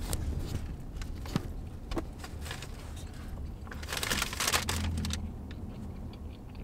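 Low steady rumble of a car heard from inside the cabin, with a few small clicks and a louder rustling noise about four seconds in.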